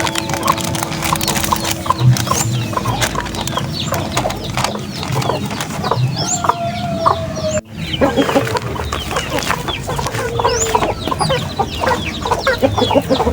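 A flock of chickens clucking, with high, short peeps and many quick taps throughout. The sound breaks off for a moment a little past halfway and then carries on.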